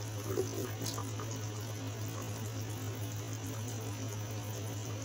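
Thick tomato-sauce stew simmering in a pot under a steady low electrical hum, which is the loudest thing throughout. A soft knock about half a second in comes from the freshly added potato and sweet potato chunks settling.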